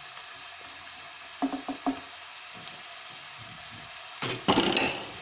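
Diced onions and carrots sizzling in oil in a stainless steel pan, stirred with a wooden spoon. Three quick knocks of the spoon on the pan about a second and a half in, and a louder burst of clatter near the end.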